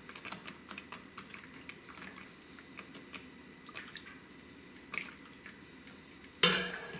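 Thick red chile sauce simmering in a pan, its bubbles bursting in small, irregular wet pops. Near the end there is a louder, brief noise as a wooden spoon starts stirring the sauce.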